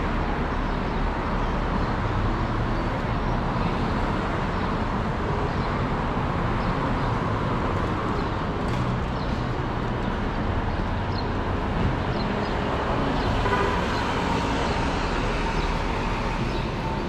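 Steady outdoor background noise, most like road traffic, with no single event standing out.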